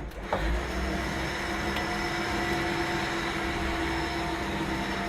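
A motor running with a steady, even hum, with a couple of faint clicks.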